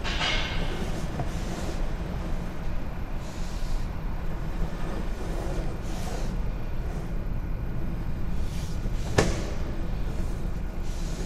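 Steady low rumble of running machinery, with short bursts of hiss every second or two and one sharp click about nine seconds in.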